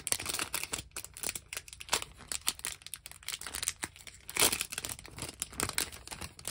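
Foil wrapper of a Pokémon TCG Celebrations booster pack crinkling and tearing as it is opened by hand: a dense run of small crackles, with a louder tear about four and a half seconds in.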